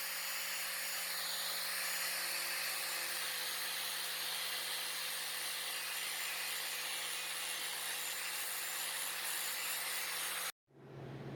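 Power tool cutting scrap metal, a steady, continuous cutting noise over a low motor hum, with a brief dip in pitch about a second in as the tool takes load; it cuts off abruptly near the end.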